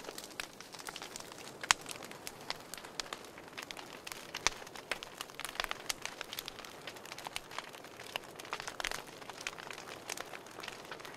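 Steady crackling: many irregular clicks and pops over a faint hiss.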